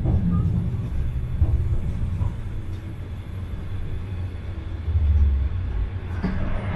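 Iyo Railway streetcar running along street track, heard from inside the driver's cab: a steady low rumble of the motors and wheels on the rails, swelling louder for a moment about five seconds in.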